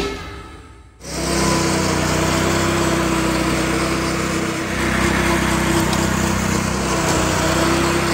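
Honda GX120 single-cylinder four-stroke engine on a 20-inch 7-blade California Trimmer reel mower, running steadily under load while mowing. It comes in about a second in, as background music fades out.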